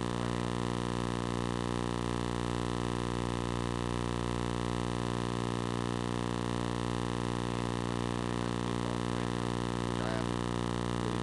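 A steady buzzing hum with many overtones, unchanging in pitch and level.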